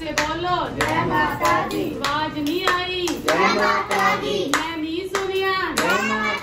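Devotional singing with hand clapping in time.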